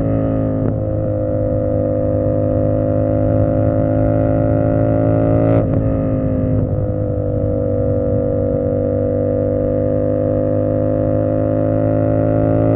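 Tuned 450SS motorcycle engine and exhaust under way: a gear change right at the start and another about five and a half seconds in, each a short dip in pitch, otherwise a steady drone at cruising revs.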